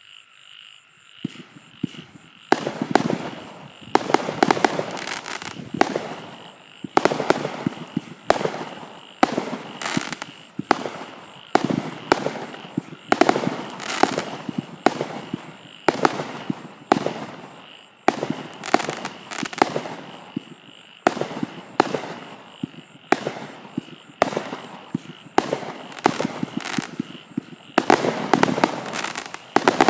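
A 49-shot consumer (1.4G) firework barrage cake with 20 mm tubes firing. It gives a rapid string of sharp launch pops and bursts, several a second and often with crackle, which starts about a second in and goes on without a break.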